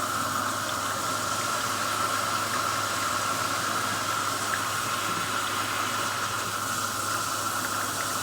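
Water running steadily into the tub of a hand-powered washing machine as it is filled for a rinse.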